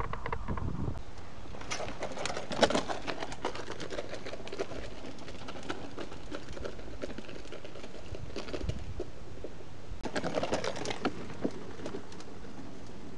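A mountain bike riding over a rooty trail and wooden boardwalk planks, rattling in quick runs of clicks and knocks. The clatter is busiest about two to four seconds in and again around ten to eleven seconds.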